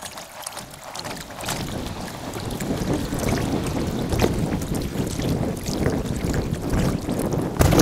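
Kayak paddling on a river in sped-up time-lapse audio: quick water splashes and crackle, with wind buffeting the microphone as a low rumble that grows louder after the first second.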